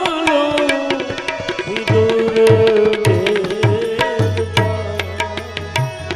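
Instrumental interlude of a Gujarati devotional bhajan: tabla keeps a steady rhythm, with deep bass-drum strokes from about two seconds in, one of them held and sliding in pitch, under a sustained melody line. The singer's last held note fades out in the first half second.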